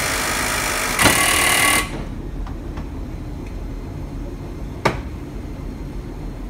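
Compressed air hissing from an air-electric PCC streetcar's air brake system. It steps up louder about a second in and cuts off suddenly before two seconds, followed by a single sharp click, over a steady low hum.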